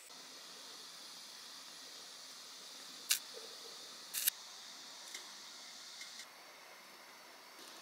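Kovea portable gas stove burner hissing steadily on a low flame, with two sharp clicks about three and four seconds in as chopsticks set rice cakes down on the wire grill, and a few fainter ticks after.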